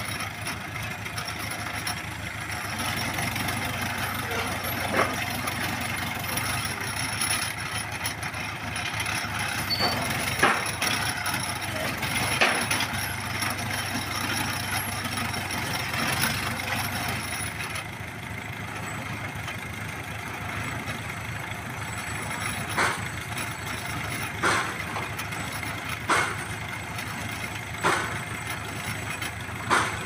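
Winch engine of a pile-driving rig running steadily. Sharp clanks come from the rig: a few scattered ones in the first half, then regular ones about every second and a half to two seconds in the last third.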